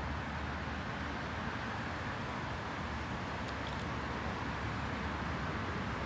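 Steady, even outdoor background noise: a low rumble with a hiss on top, and a couple of faint high ticks about midway.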